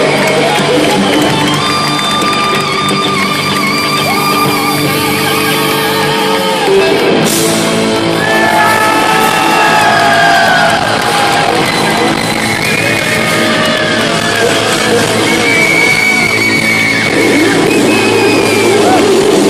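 Live rock band playing loud in a large hall: an electric guitar lead of long held notes that bend up and down in pitch, over bass and drums.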